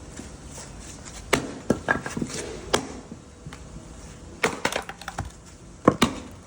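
Wood cracking and splintering in a series of sharp snaps as a log is split, with the loudest cracks near the end.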